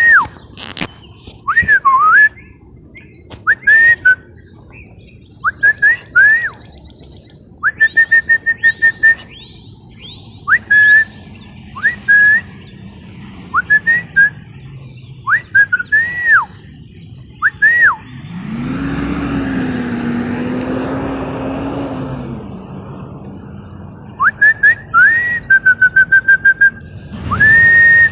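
Caged songbird singing phrases of clear whistled notes, slurred up and down, with runs of fast repeated notes. Partway through, a louder noisy sound with a low steady hum lasts about four seconds, and a shorter one comes near the end.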